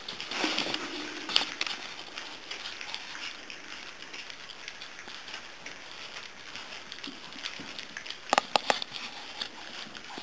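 A litter of puppies eating soft food together from a round aluminium feeding pan, a steady crackle of eating. Sharp clicks stand out about a second in and again in a quick cluster near the end.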